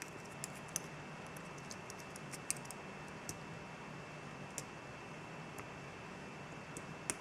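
Faint, irregular small clicks of a thin flagged lock pick working the inner pins of a Mul-T-Lock Interactive padlock cylinder, a few ticks spread over several seconds against a faint steady hiss.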